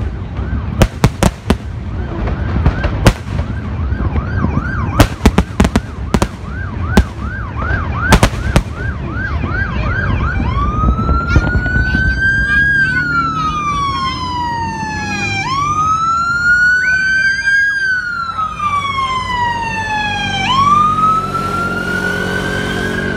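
Fireworks going off with several sharp bangs over the first nine seconds or so, while a police siren sounds in a fast yelp. About ten seconds in the siren switches to a slow wail, rising quickly and falling slowly about every five seconds.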